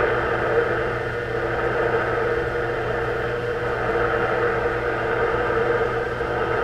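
Realistic DX-160 shortwave receiver playing band noise through its speaker: steady static and hiss with a low hum and a steady tone underneath. It cuts off abruptly at the very end as the set is switched off.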